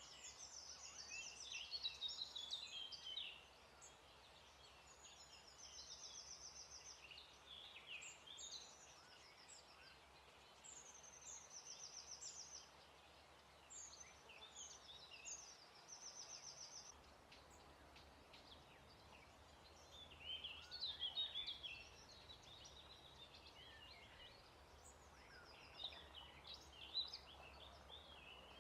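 Songbirds singing: high-pitched phrases of fast trills, downward-slurred notes and jumbled warbling, several birds in turn, in bursts of a second or two over a faint steady background.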